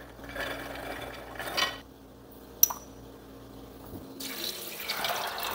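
Soaked chickpeas slid from a ceramic bowl into an empty pressure cooker pot, rattling for about two seconds, then a sharp click. About four seconds in, water is poured from a glass jug into the pot and fills it.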